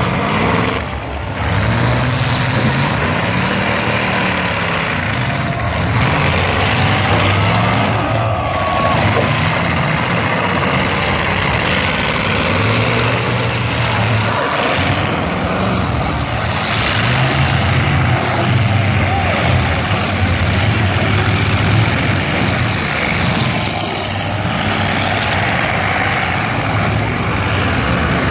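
Several demolition derby cars' engines revving hard and dropping back again and again, one rev after another, over a dense, continuous din.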